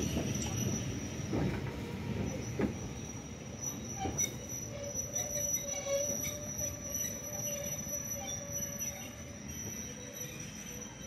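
Heritage railway passenger coaches rolling slowly past a platform, their wheels giving a thin, steady high squeal over a low rumble, with a few knocks about four seconds in.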